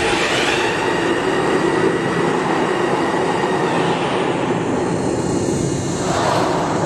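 Steady mechanical running of an automated underground bicycle-parking machine (Giken Eco Cycle) as it carries a bicycle through its shaft, swelling briefly about six seconds in.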